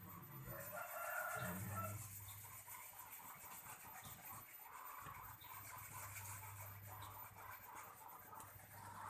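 A rooster crowing faintly about a second in, followed by quieter clucking, over a faint steady low hum that starts about five seconds in.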